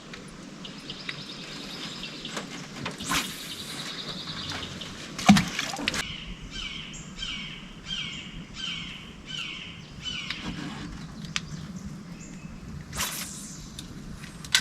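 Songbirds calling outdoors: a high trill, then a run of about six repeated falling chirps. A sharp knock about five seconds in is the loudest sound, and a brief hiss comes near the end.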